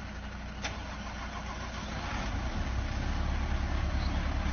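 Heavy truck's diesel engine running low and steady, growing louder about halfway through as the truck pulls through the turn. A short sharp click about a second in.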